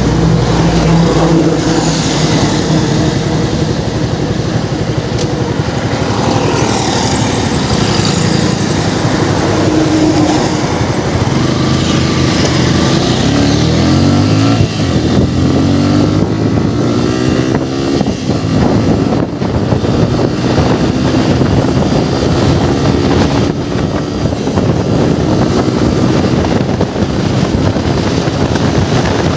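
Motorcycle engine pulling away and accelerating through the gears, its pitch climbing in several rises about halfway through, then running steadily at road speed. Wind rushes over the helmet-mounted microphone.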